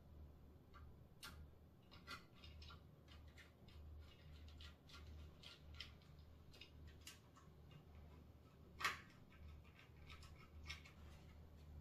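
Faint clicks and scrapes of a small screwdriver driving screws into a 3D-printed plastic fender as it is fitted, with one sharper click about nine seconds in.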